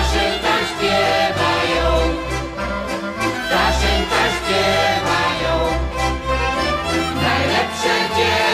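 A group of voices singing together with instrumental accompaniment, over a bass that plays long low notes.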